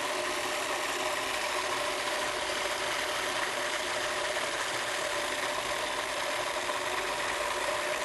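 Heavy-duty KitchenAid food processor motor running steadily, puréeing a bowl of steamed carrots, a constant whirring hum with a steady whine.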